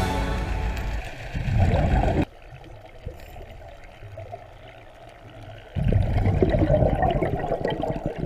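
Underwater sound picked up through a camera housing: scuba divers' exhaled air bubbling and gurgling. It comes in loud stretches, cuts off suddenly about two seconds in, stays quieter for three to four seconds, then comes back loud near the end.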